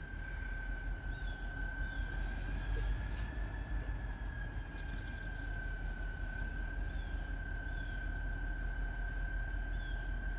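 Diesel switching locomotive running with a low rumble and a steady high whine that rises a little about three seconds in and settles back. Small birds chirp several times over it.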